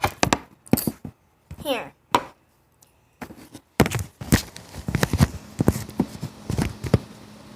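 An irregular run of sharp taps and knocks from things being handled close to the microphone, densest in the second half, with a short spoken word about two seconds in.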